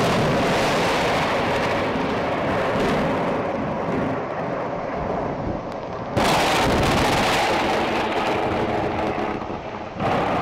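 Heavy booming sound effects with long rolling rumbles: one boom dies away, a fresh boom hits about six seconds in, and another comes near the end.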